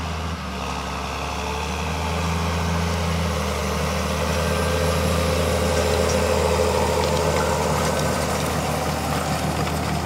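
John Deere 6920 tractor's six-cylinder diesel engine running steadily while ploughing, growing louder as it nears and easing off a little near the end as it passes.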